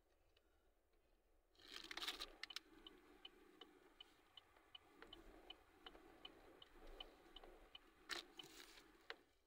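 A car's turn-signal indicator ticking steadily, about three clicks a second, with faint rustling and handling noise that comes in bursts about two seconds in and again near the end.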